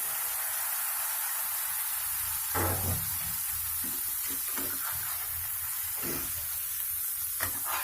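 Stuffed brinjals sizzling steadily in oil in a kadhai, with a few brief knocks of a utensil against the pan.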